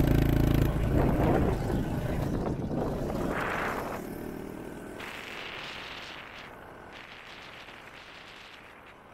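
Honda CRF110F dirt bike's small single-cylinder four-stroke engine running loud, its note dropping away within the first second. After that, a rushing of wind and road noise fades steadily away.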